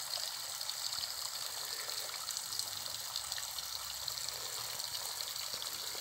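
Thin trickles of water falling down the mossy rock face of a nearly dry waterfall and splashing onto stones below. A steady, even hiss of low-flow water.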